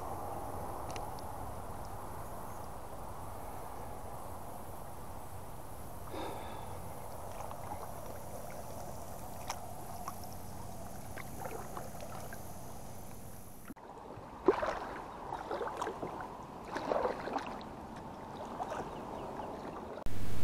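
Water washing steadily along the hull of a plastic kayak as it glides through weedy lake water, with a few faint ticks. About two-thirds through the sound changes abruptly to a string of irregular knocks and clunks.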